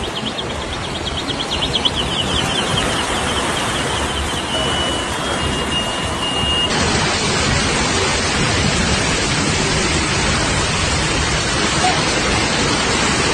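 Steady, loud rushing noise of heavy rain and floodwater, with a run of quick high-pitched beeps in the first half.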